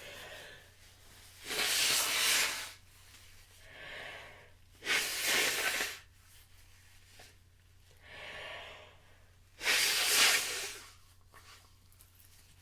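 A person's loud breathy bursts through the nose and mouth during a sneezing fit: three of them, each about a second long, and each led in by a softer inhale.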